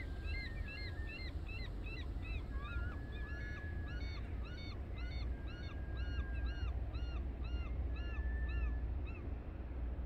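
Birds calling in a fast, regular series of short sharp notes, two or more calling over each other, with a few longer held whistles, over a low rumble of wind on the microphone.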